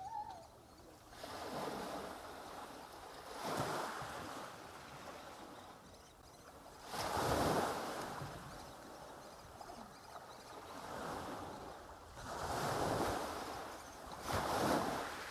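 Sea waves breaking and washing up on a beach: a rushing hiss that surges and fades every few seconds, strongest about seven seconds in.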